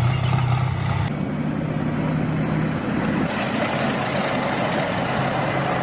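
Steady low motor hum with a hiss over it, shifting slightly in tone about a second in and again around the middle.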